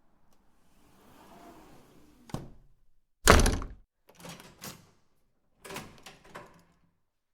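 A door being handled: a sharp click, then a loud heavy thud as it shuts, followed by a few lighter knocks and clunks in two quick groups.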